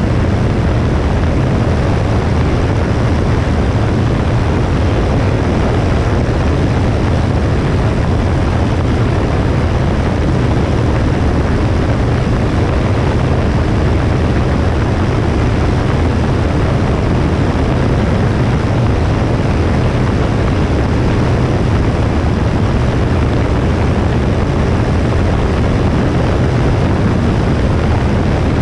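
Cessna 172S four-cylinder Lycoming piston engine and propeller droning steadily, heard with rushing air noise on a wing-mounted camera.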